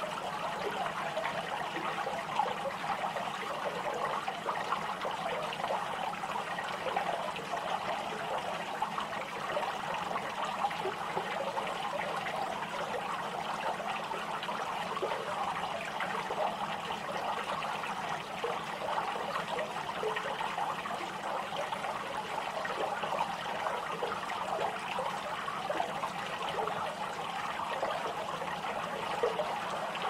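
Running water trickling steadily, a continuous babble of many small splashes with no breaks.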